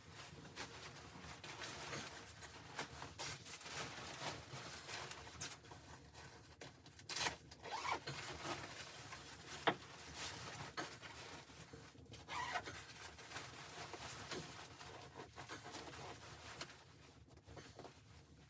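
Irregular rustling with scattered small clicks and a few sharper knocks, as of fabric and gear being handled at close range.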